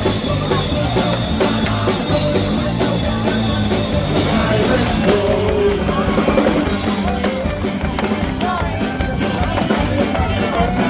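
Rock band playing live and loud, with a drum kit and singing.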